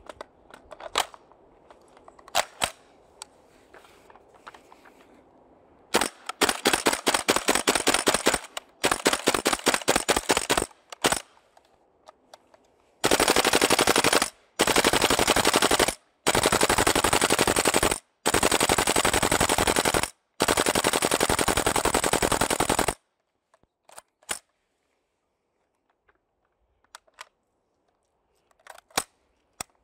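Airsoft rifles firing. A few single shots come first, then several rapid full-auto bursts, then five long, very fast bursts one after another. A few scattered single shots follow.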